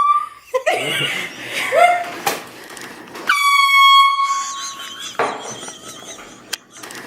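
Handheld air horn blasting in a small room, one steady high tone. One blast cuts off about half a second in, and another of about two seconds starts a little over three seconds in.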